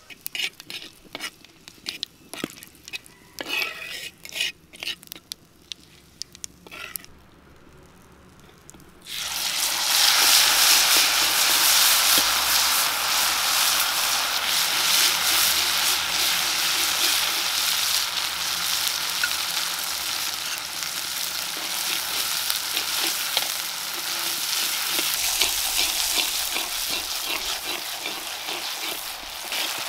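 Cumin seeds and dried red chillies crackling in hot oil, with scattered sharp pops. About nine seconds in, a wet paste goes into the oil and it breaks into a loud, steady sizzle that goes on while it is stirred with a spatula.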